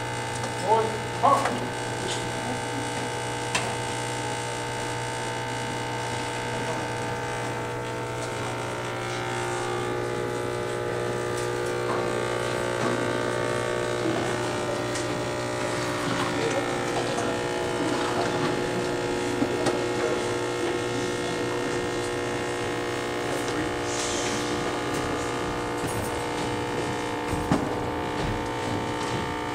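Steady electrical buzz, a low hum with many higher steady tones stacked above it, running without a break under a faint crowd murmur.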